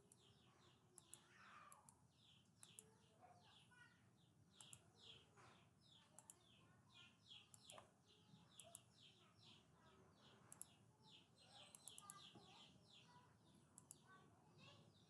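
Near silence, with faint, repeated short high chirps of birds in the background.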